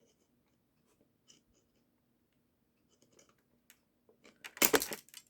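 Small tool tips scraping and clicking faintly against a tiny metal retaining ring on a toy's gear shaft. Near the end the ring snaps free and flies off with a sudden loud burst of clicks and rattling.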